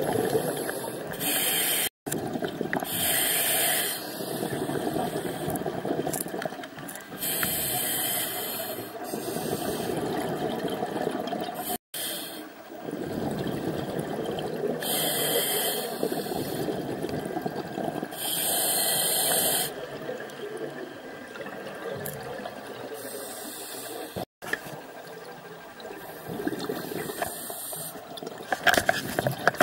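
Scuba regulator breathing underwater: a steady rushing of bubbles, with a hiss coming and going every few seconds as the diver breathes in and out. A few sharp clicks near the end.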